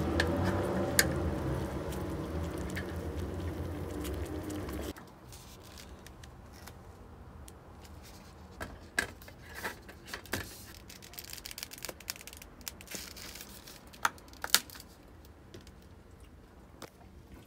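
A steady low rumble stops abruptly about five seconds in. After it come crinkling and tearing of cup-noodle packaging, with scattered sharp clicks and taps.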